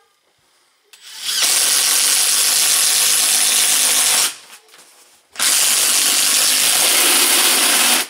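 Makita cordless drill boring through a wooden wall stud in two steady runs of about three seconds each, with a short pause between. The bit cuts through the wood easily, "like a butter".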